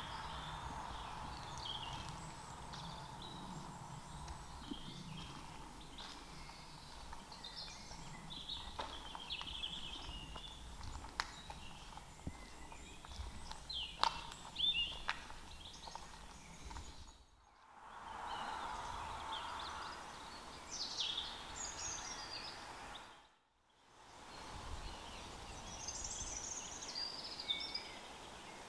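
Woodland birds singing and calling in short chirps and trills over faint outdoor background noise, with a few sharp clicks in the middle. The sound drops out briefly twice.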